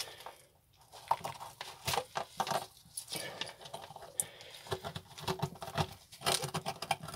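Small metal pick scraping and picking hard calcium scale off a marine toilet pump's base gasket: a run of short, irregular scratches and clicks that starts about a second in. The scale is rock-hard calcium that forms from seawater reacting with urine.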